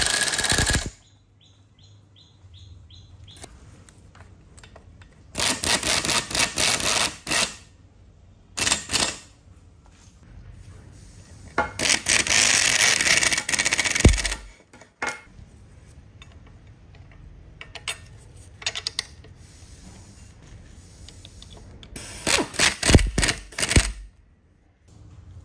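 Power screwdriver driving screws into a chainsaw's housing parts in five short bursts of whirring and rapid clicking, the longest lasting about two and a half seconds near the middle.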